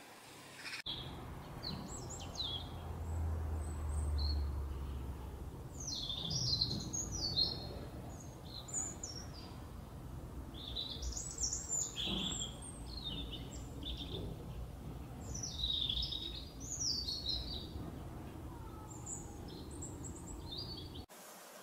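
Small songbirds chirping and twittering in short, repeated bouts, with a low rumble underneath.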